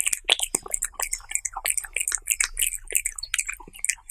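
Cat eating soft chicken-and-egg food from a plate, close-miked: a rapid run of wet licking and chewing smacks, several a second.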